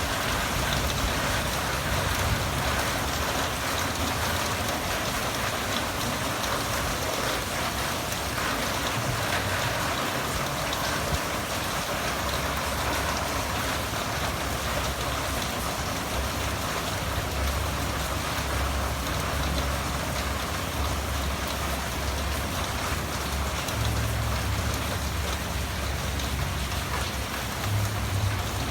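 Steady rain falling, a continuous even hiss. A low rumble comes and goes in the second half.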